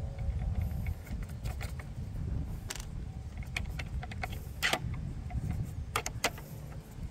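Scattered metallic clicks and scrapes as the locking pin of a new quick-release trolling-motor bracket is worked into place, still a little tight. The clicks are sharpest and loudest in the second half, over a steady low rumble.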